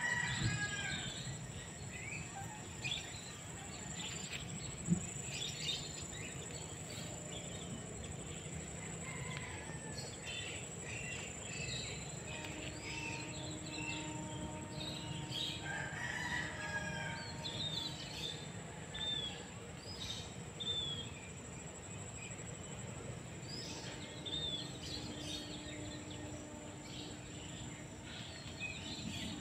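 Outdoor ambience of birds chirping and calling again and again, with a few longer drawn-out calls, over a steady high-pitched insect drone. A brief sharp knock about five seconds in.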